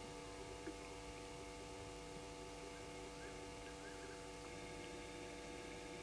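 Faint, steady night ambience: a constant hum of several held tones, with a few faint short chirping calls around the middle.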